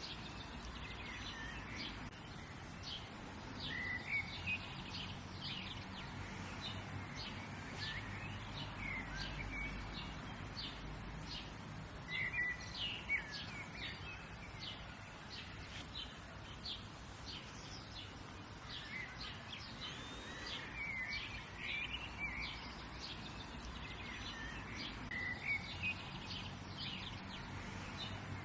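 Several birds chirping and calling in short, quick notes and trills, over a steady outdoor background hiss and a faint low hum.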